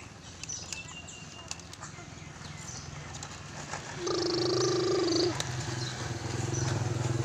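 Plastic toy trucks clicking and scraping in loose soil. About four seconds in, a louder, steady pitched hum starts over a low drone and lasts just over a second.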